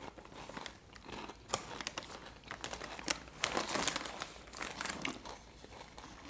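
Crinkling of a foil snack bag of Beaver Nuggets as a hand rummages inside it for the caramel-coated corn puffs, a run of crackly rustles that is loudest a little past halfway.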